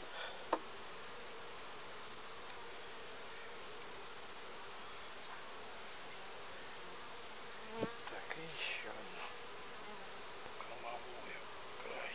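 Honeybee colony humming steadily in an open hive. A sharp click comes about half a second in, and wooden hive frames knock and scrape about eight seconds in as they are shifted along the box.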